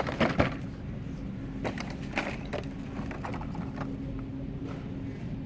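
Clear plastic blister packaging of a die-cast toy car multipack crackling and clicking under the fingers: a cluster of sharp crackles at the start, then scattered ones, over a steady low hum.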